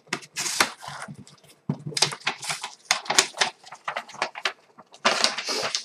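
Cardboard shipping box flaps being folded open and a sheet of paper being handled: irregular rustling and scraping, with a longer rustle near the end.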